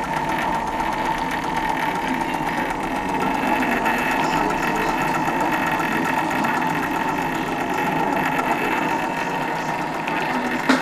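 Cinéric Ericsson 9.5mm cine projector running: its series-wound motor gives a steady whine under the fast, even clatter of the film transport mechanism. A single click comes at the very end.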